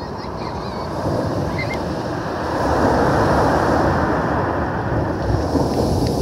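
Sea waves breaking on a pebble beach. The surf grows louder about two and a half seconds in.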